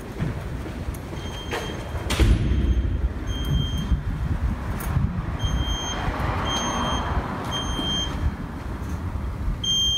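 A smoke alarm beeping from inside a dumpster: short high beeps, faint at first, then regular about every 0.8 s from about halfway through, and louder near the end. Low thumps sound underneath.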